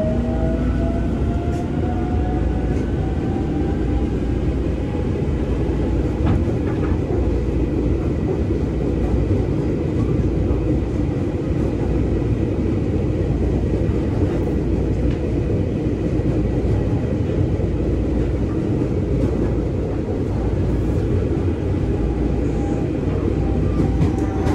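Inside a KRL commuter electric train running along the track, a steady, heavy rumble of the carriage. In the first few seconds a faint whine rises in pitch as the traction motors speed the train up.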